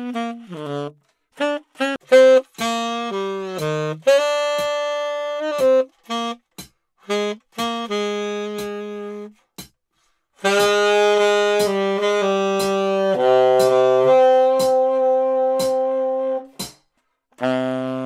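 Solo tenor saxophone, unaccompanied and with no effects, played a couple of feet from a stereo recorder so the room's own sound comes through. A run of short separate notes, a short break a little before ten seconds in, then a passage of long held notes.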